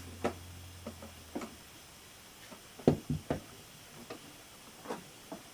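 Scattered sharp clicks and knocks, loudest in a quick cluster of three about three seconds in: an electric upholstery staple gun's lockable carry case being handled and opened.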